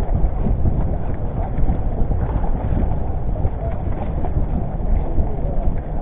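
Wind rumbling on the microphone with water slapping and knocking against the hull of a small outrigger fishing boat.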